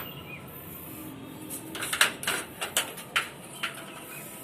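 A person's footsteps on the garden ground: a string of short, irregular crackles, most of them about two to four seconds in.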